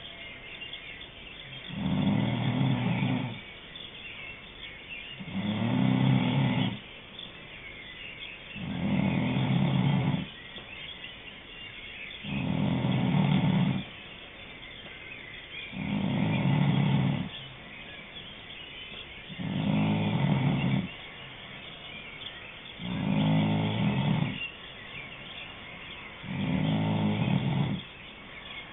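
Rhythmic snoring: a low snore lasting about a second and a half, repeating roughly every three and a half seconds, eight times, with faint hiss between the snores.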